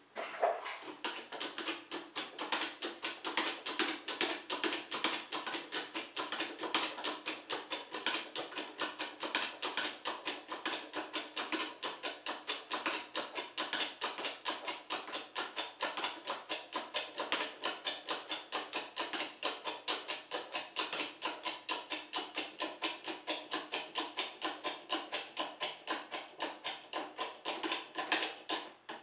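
Hand-pumped hydraulic bottle jack working as a press: a rapid, even clicking of about five strokes a second that stops abruptly near the end.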